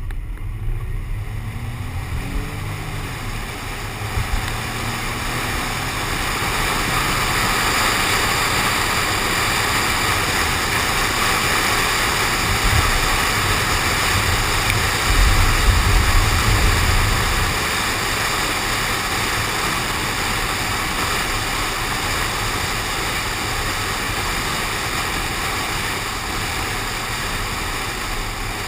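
Rushing wind and road noise on a car-mounted GoPro while the car drives, building as it gathers speed over the first several seconds, with a faint rising engine note early on. A louder low rumble comes around the middle.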